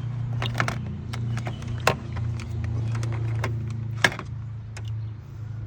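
Light clicks and taps of an ignition coil and multimeter test leads being handled, two of them sharper, over a steady low hum.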